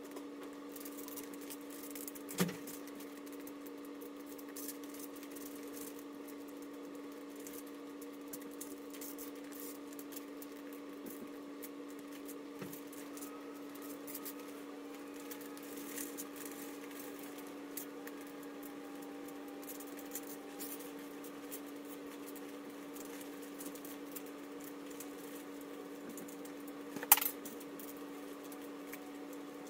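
Light crinkling and small clicks of a clear plastic transfer-vinyl sheet being handled, peeled and pressed onto a clear bubble balloon, over a steady low hum. A sharp tap comes about two seconds in and a louder one near the end.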